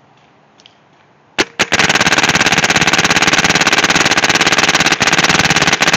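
Planet Eclipse Ego 8 paintball marker firing: two quick shots about a second and a half in, then a rapid, unbroken string of shots, many per second.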